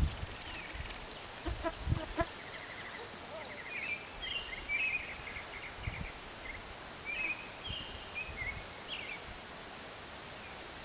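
Birds chirping in short repeated phrases over quiet rural ambience. A few soft thuds of a horse's hooves on grass come in the first couple of seconds, as the horse walks past and away.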